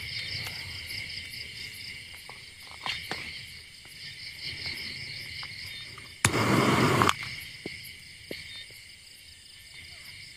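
Crickets chirring in a steady, pulsing night chorus. A few faint clicks are heard, and about six seconds in a loud burst of noise lasts just under a second.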